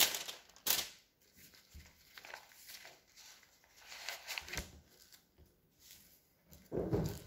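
Quiet room tone with two sharp clicks or knocks in the first second, scattered faint shuffling noises, and a short low sound near the end.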